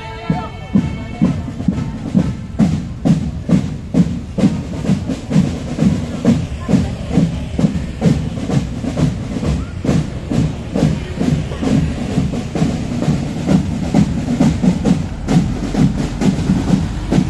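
Marching drum band playing a steady percussion beat, about two strokes a second, with drums and sharp snare-like hits.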